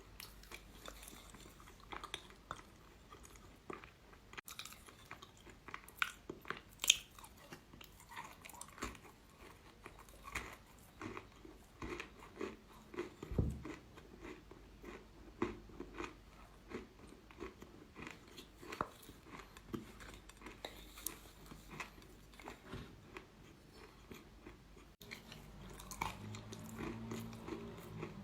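Person biting and chewing hard eating chalk, with irregular sharp crunches throughout.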